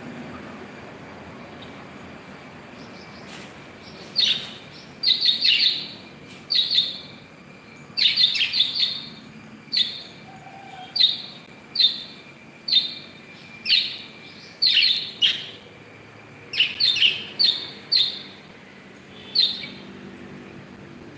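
A bird giving short, sharp chirps, each falling in pitch, about twenty of them in irregular bunches starting about four seconds in. A steady high-pitched whine runs underneath.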